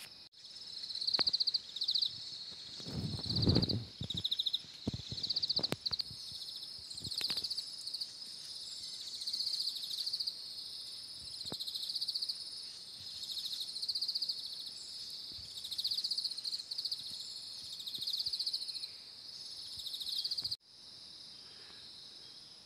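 Forest insects chirping in a high, steady chorus, with trilled pulses about once a second. A brief low rumble comes about three seconds in, with a few light clicks. Near the end the sound cuts off abruptly to a quieter, even insect hum.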